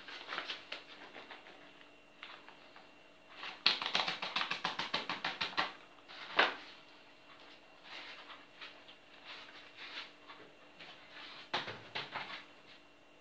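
A paper flour bag and the flour being handled on a tabletop: scattered light taps and rustles, with a rapid run of crisp clicks, about ten a second for two seconds near the middle, then a single knock.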